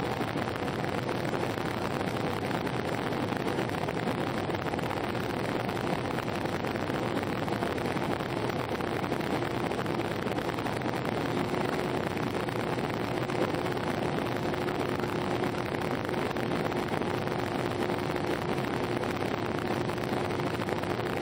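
Airbus A319 cabin noise: a steady rush of engine and airflow heard from inside the cabin, with a faint steady hum that steps slightly higher about halfway through.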